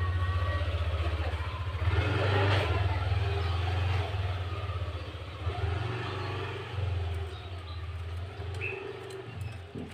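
A motor vehicle's engine running with a steady low drone, swelling louder about two to three seconds in.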